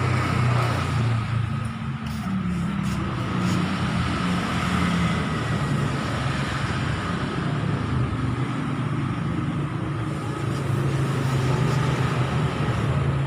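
Stroked-up 260 cc Viar motorcycle engine running just after starting, revving up briefly about two seconds in, then settling back to a steady idle.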